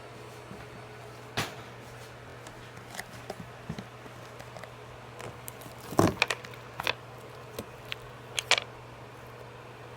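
Slime being squished and pressed by hand, giving sporadic short wet pops and clicks, the loudest a quick cluster about six seconds in, over a steady low hum.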